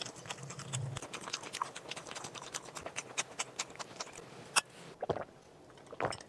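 Close-up eating sounds of a grilled sausage: a dense run of small crisp clicks and crackles from tearing and chewing, with a few sharper, louder clicks in the second half.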